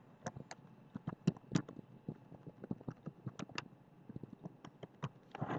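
Irregular light clicking at a computer, about three or four clicks a second with uneven gaps.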